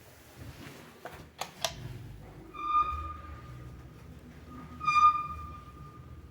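1992 KMZ 400 kg passenger lift: a few sharp clicks, then the car starts moving with a low rumble and a high, piercing squeak that swells twice. The title calls it a hellish squeak.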